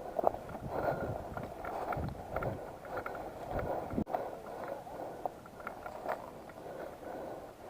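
Irregular footsteps with rustling and crackling of clothing, gear and vegetation, broken by a few short clicks.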